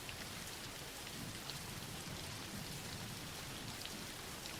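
Steady, soft rainfall: an even patter of rain with a few separate drops ticking over it.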